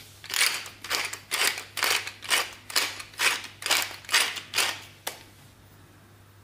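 Hand-twisted pepper mill grinding peppercorns: about ten rasping twists, two a second, followed by a single click.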